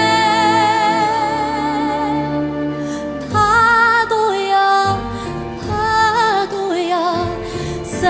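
Background music: a slow song with a woman singing long, wavering held notes over soft accompaniment.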